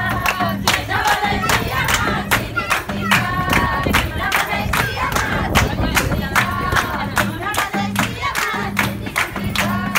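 A group of women singing a Nepali Teej folk song together, kept in time by a steady beat of hand clapping.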